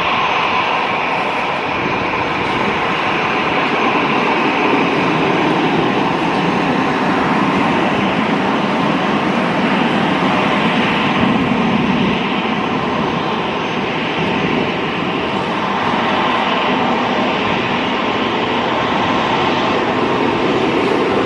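Airbus KC-30A (A330-200 MRTT) tanker taxiing, its twin turbofan engines running steadily at low taxi power. The sound is a constant rushing drone with a faint whine.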